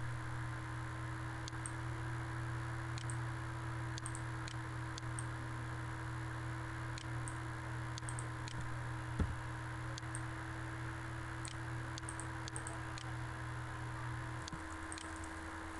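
Faint computer mouse clicks scattered over a steady electrical hum and hiss, with one sharper click about nine seconds in. Part of the low hum drops out near the end.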